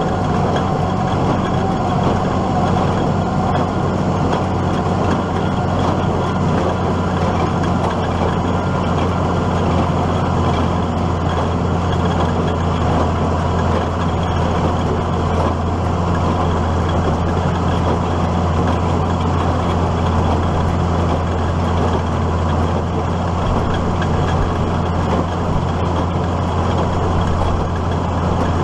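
Case IH Maxxum 5140 diesel tractor pulling a New Holland 570 small square baler, running as a steady, unbroken drone while it bales hay.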